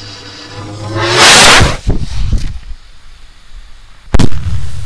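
Firework rocket fired from a homemade drain-pipe launcher: a rushing whoosh builds about a second in as it launches, trailing off into crackles. Near the end a single sharp bang as the rocket bursts.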